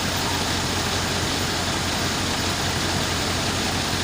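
A heavy vehicle engine running steadily at an even speed, with a constant low hum.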